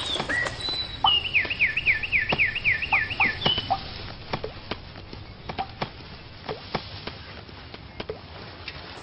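Bird-like chirping from a cartoon soundtrack: a quick run of about eight falling whistled notes about a second in, with a few single chirps around it. Scattered soft clicks and taps follow, fainter in the second half.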